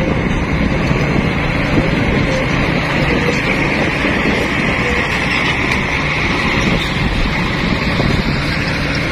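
Diesel engine of a loaded Nissan dump truck running as the truck drives slowly past, a steady loud drone. A few short squeaks come through it at irregular intervals.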